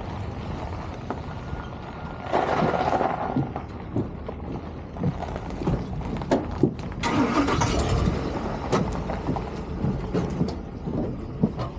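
Boat engine running steadily under irregular knocks and clatter, with two louder spells of rushing noise, about two seconds in and again about seven seconds in.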